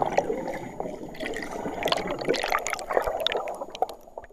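Underwater bubbling water sound effect with many small pops and trickles, fading out near the end.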